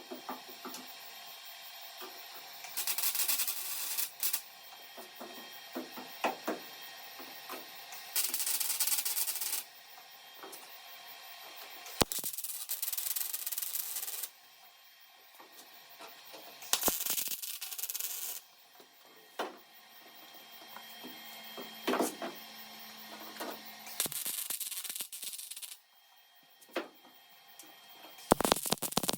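Welder laying short stitch welds on a car's sheet-metal quarter panel: about seven separate bursts of crackling, frying arc noise, each a second or two long, with short pauses between them.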